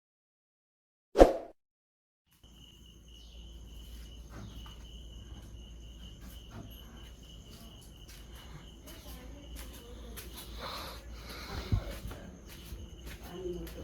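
A single sharp hit about a second in, then steady insect chirping, high-pitched and continuous, over outdoor background noise with scattered small clicks.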